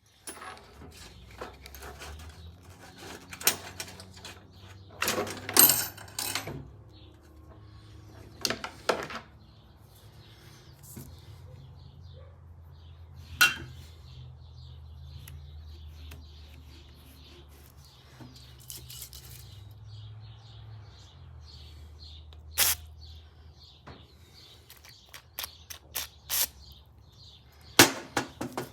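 Scattered clicks, knocks and short rattles of small parts being handled and set down, with a few louder knocks, over a steady low hum. Faint bird chirping runs underneath.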